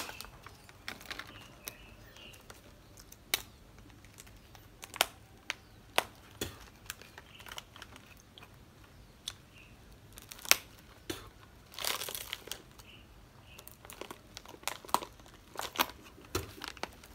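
Plastic snack-cup packaging crinkling and crackling as it is opened and handled, in scattered sharp crackles with a longer tearing rustle about twelve seconds in.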